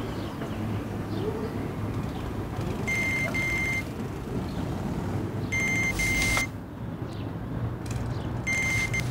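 A high electronic double beep, sounded three times about two and a half seconds apart, over a low steady hum of traffic. The beeps are a signal taken as friends calling for the man.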